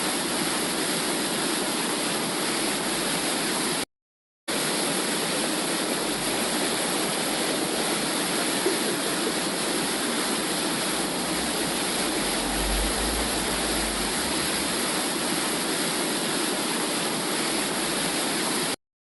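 Womb sound for soothing a baby: a steady whooshing noise like rushing water, broken by a half-second dropout to silence about four seconds in, then cutting off suddenly at the end.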